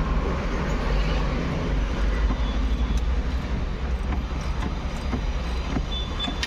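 Steady low rumble of workshop background noise, with a few faint light clicks from hand tools working on a car's steering column.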